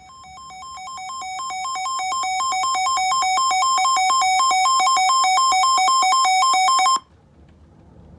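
Electronic emergency-alert alarm tone: two pitches alternating rapidly in a warbling pattern. It swells louder over the first couple of seconds, then cuts off abruptly about seven seconds in. It announces an incoming weather warning broadcast.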